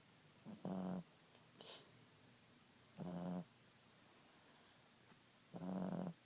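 Boston terrier snoring in its sleep: three snores about two and a half seconds apart, each about half a second long.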